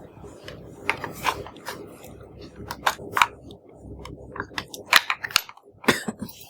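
Toy packaging being handled and opened: a string of irregular sharp clicks, scrapes and crinkles, with several louder snaps around the middle.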